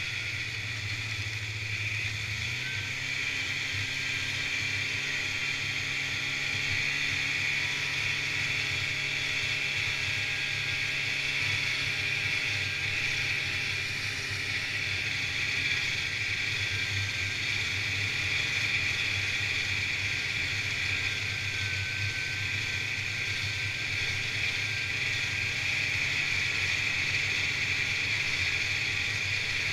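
1986 Polaris Indy Trail 488 fan-cooled two-stroke snowmobile running steadily at trail-riding speed. Its low engine drone stays level under a constant high hiss.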